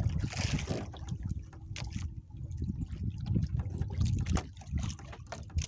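Water lapping and trickling against the hull of a small fishing boat, with a few light clicks scattered through.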